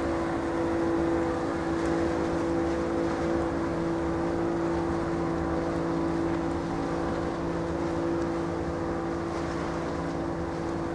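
Steady engine hum at a constant pitch, over a rushing noise.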